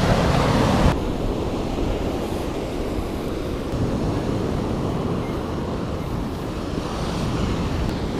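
Wind buffeting the microphone of a point-of-view camera on a fat bike ridden along the shore, with surf breaking on the rocks. The sound is a steady, low rumbling rush, with a louder burst in the first second that cuts off sharply.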